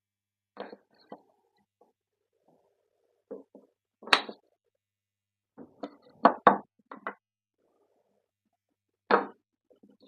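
Wooden strips of pallet wood knocking against each other and the workbench as they are handled and fitted together: a dozen or so separate sharp knocks with pauses between, the loudest about four seconds in and a quick cluster around six seconds in.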